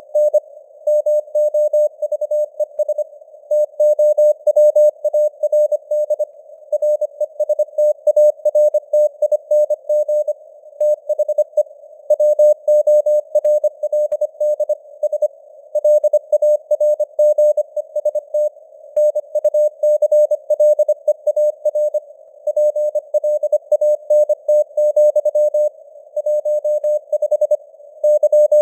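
Morse code sent at 25 words per minute: a single steady beeping tone keyed on and off in dots and dashes, over a narrow band of hiss like a CW receiver's, with the signal strength fading up and down (simulated QSB).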